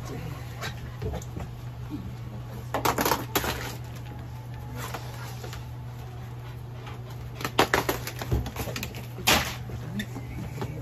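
A few short bursts of clicking and clattering from the dog being handled on the exam table, about three seconds in, around eight seconds and once more just after nine, over a steady low hum.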